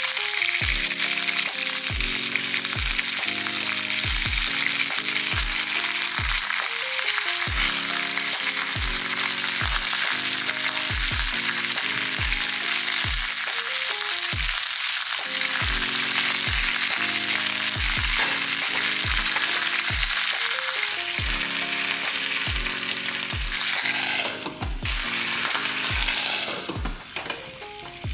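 Salmon and vegetables sizzling in a stainless steel pot on an induction hob, a steady hiss, cooking in their own moisture without added water. Background music with a regular beat plays over it. Near the end the hiss breaks up.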